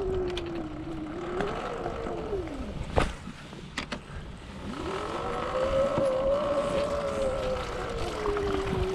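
Sur Ron Light Bee X electric dirt bike's motor and drivetrain whining, the pitch falling as it slows over the first few seconds. It climbs again with throttle from about five seconds in and eases off toward the end. There is a sharp knock about three seconds in.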